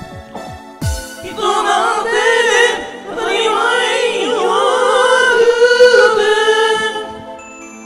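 Several voices singing a J-pop song together into karaoke microphones over its backing track. The voices come in about a second in, after a few falling low notes, and drop away shortly before the end.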